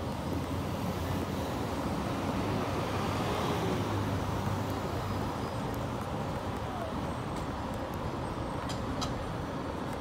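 Steady street traffic noise: the continuous rumble and hiss of cars and buses on a busy city street, with a few light clicks near the end.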